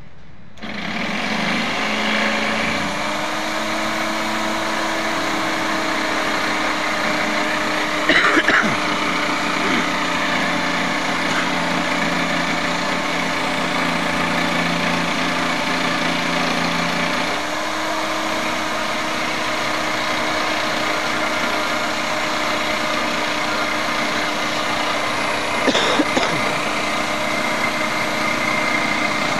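Corded electric jigsaw running steadily as it cuts a circle out of a plywood sheet. It starts about half a second in, its tone shifts about two-thirds of the way through, and there are two brief louder rattles, one early and one near the end.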